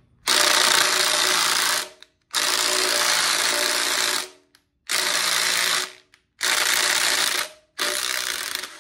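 Small electric wrench running in five bursts of one to two seconds each, driving a stuck exhaust manifold fastener on a Ford 302 V8, run forward first to break it loose.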